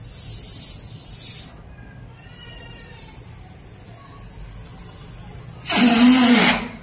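Air hissing out of an inflated latex balloon whose neck is pinched between the fingers, fainter for a few seconds in the middle, then a loud pitched squeal for about a second near the end as the air escapes through the stretched neck.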